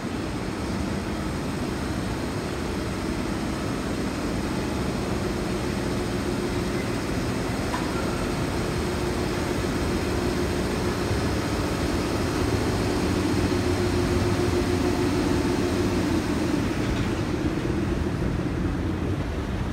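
JR Freight EF65 DC electric locomotive pulling a container train away at low speed, its cooling blowers running with a steady loud hum and whir. The sound grows a little louder about two-thirds of the way through as the locomotive and first wagons pass.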